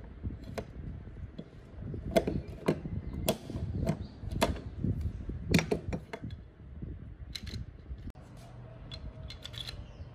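Irregular sharp metallic clicks and knocks, about a dozen, loudest in the middle, from hand work on a hacksaw frame: a pin being fitted through its plastic handle and the steel frame moved about on a wooden table.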